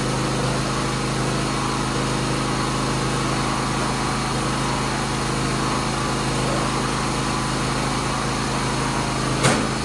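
1976 John Deere 300 garden tractor's engine running steadily at an even speed. A single sharp click near the end.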